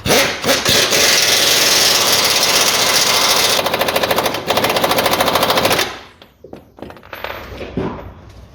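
Impact wrench hammering a suspension control arm bolt tight: a loud run of rapid blows that changes about three and a half seconds in and stops about six seconds in, followed by a few light knocks.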